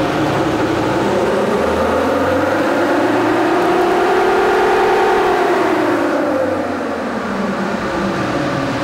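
2003 Nissan Patrol's 3.0-litre four-cylinder turbo-diesel run under full load on a chassis dyno, with its tyres spinning the rollers. The engine and driveline whine rises in pitch for about four seconds, then falls away over the next two, over a steady low hum.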